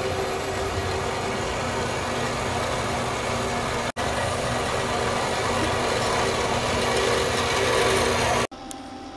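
Power tool cutting through a steel BMX handlebar tube, running steadily with a rasping cutting noise. It breaks off briefly about four seconds in and drops away near the end.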